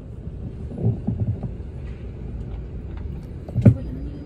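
Low, steady engine and road rumble of a moving vehicle, heard from inside through the window glass, with a brief louder sound about three and a half seconds in.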